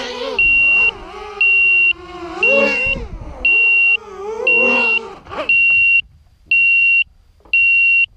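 An FPV racing quadcopter's brushless motors whine, the pitch rising and falling with the throttle, then stop about five and a half seconds in. Throughout, an electronic beeper sounds a loud, steady high tone about once a second, each beep lasting about half a second.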